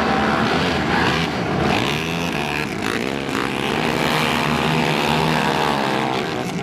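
A pack of racing quad (ATV) engines running hard on a dirt oval, several engines at once, their pitch dipping and rising again about two to three seconds in as they go through a turn.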